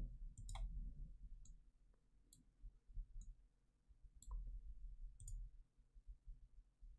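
Faint computer mouse clicks, about six or seven spread over several seconds, over a low background hum.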